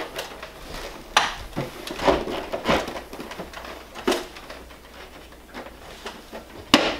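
Plastic housing of a Mr. Cool mini-split indoor head unit knocking and clicking against its wall mounting plate as it is pushed and seated: a few scattered knocks, with the sharpest snap near the end as the bottom edge is pressed home.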